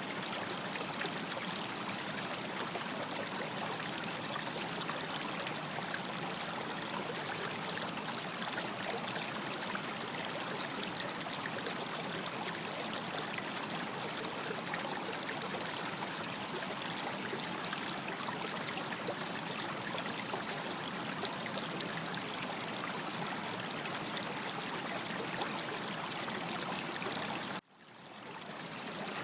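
Stream water running and trickling steadily. Near the end it cuts out suddenly for a moment and fades back in.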